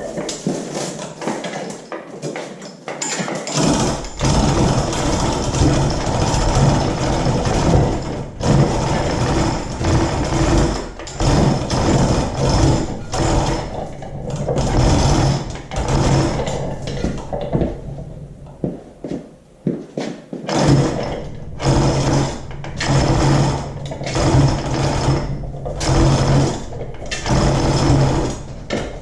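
A motor-driven tool or machine running in repeated bursts of a second or two, with short pauses between them and a quieter stretch about two thirds of the way through.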